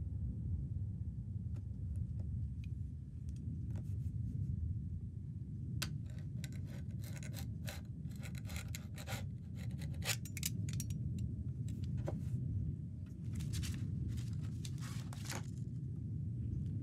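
Packing tape on a wooden box being scraped and cut open by hand with a blade: a run of short, sharp scratches and clicks that starts a few seconds in, over a low steady rumble.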